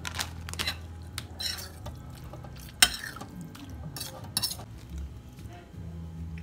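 A metal spoon and fork clinking and scraping against a bowl while stirring a shredded-cheese filling, with one sharp clink a little under three seconds in.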